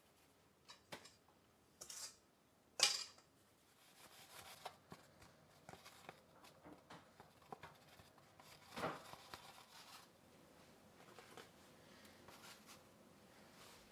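Quiet kitchen handling noises as cookie dough balls are rolled in a tray of cinnamon sugar and set on a metal baking sheet. A few sharp clicks come in the first three seconds, the loudest about three seconds in. Soft rustling and light taps follow, with a duller knock about nine seconds in.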